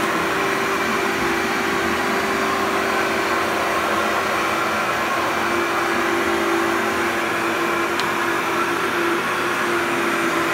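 Upright vacuum cleaner running steadily over carpet: a rush of air with a steady motor hum.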